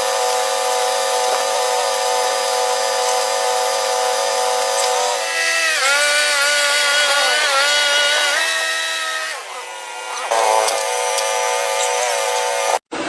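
A machine motor running with a steady whine that steps down and back up in pitch several times as its load changes, then cuts off abruptly near the end.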